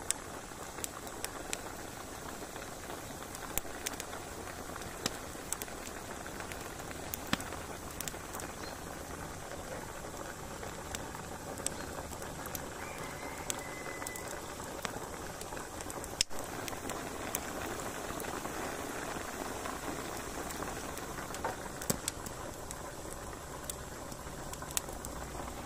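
Pork pieces boiling in salted water in a cast-iron cauldron over a wood fire, a steady bubbling hiss: the early stage of rendering the fat into cracklings. Scattered sharp pops and crackles come from the burning sticks beneath.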